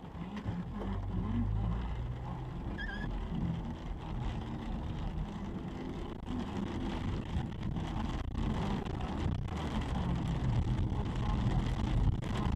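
Car cabin noise while driving on a wet road in the rain: a steady engine and tyre drone, with rain hitting the windscreen.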